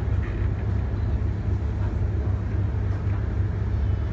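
Twin City Liner passenger boat heard on board, a steady low rumble from its engines as it moves slowly along the canal.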